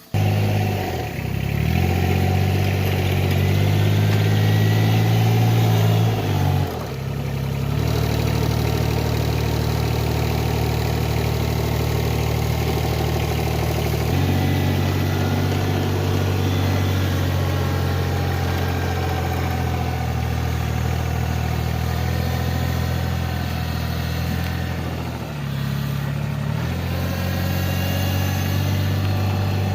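Tractor engine running steadily, its speed shifting down and up a few times, with brief dips in level around 7 and 26 seconds in, while it hauls buckets of wood chips.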